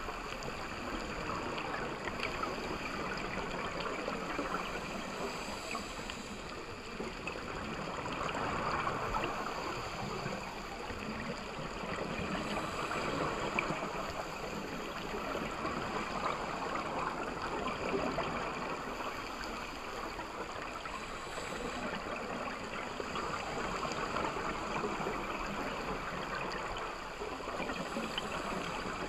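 Underwater sound through a dive camera's housing: a steady rush and gurgle of water that swells and eases every few seconds.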